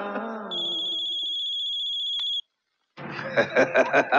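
A high electronic ringer with a fast trill sounds for about two seconds and cuts off, after a ring just before it. About half a second later a man starts laughing loudly in quick, regular bursts. The tail of a song fades out at the start.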